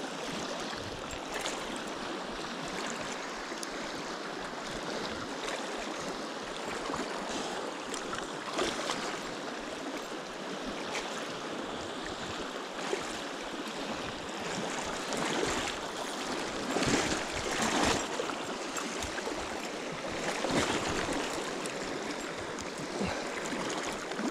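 Rushing water of a river rapid, a steady broad wash, with several brief louder noises breaking through in the second half.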